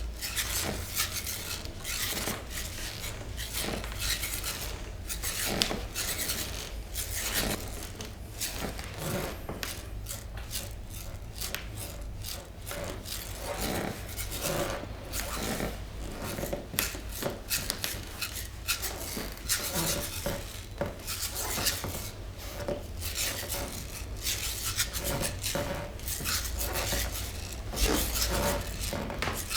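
Hands rubbing and massaging over skin and cloth, a continuous run of short, rasping strokes.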